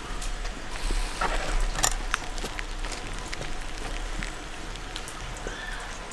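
Light rain pattering on surfaces, a steady hiss broken by scattered sharp taps and clicks, one loud click about two seconds in.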